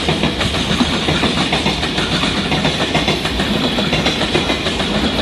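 A freight train rolling past at speed, its wagons' wheels clattering over the rail joints in a dense, steady stream of clicks.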